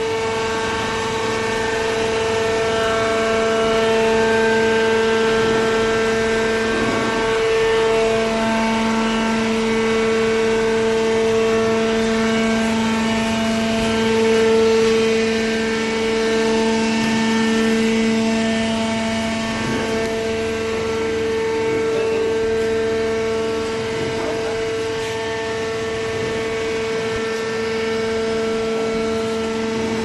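Hydraulic cardboard baler's power unit running, a steady motor-and-pump hum with a constant pitch. A lower tone comes in more strongly about eight seconds in.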